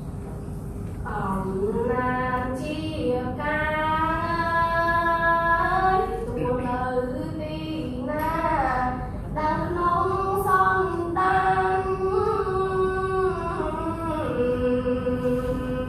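A girl's solo voice chanting Khmer verse to a slow melody, as traditional Khmer poems are recited. She holds long notes that glide up and down, in a few long phrases with short breaks between them, with no accompaniment.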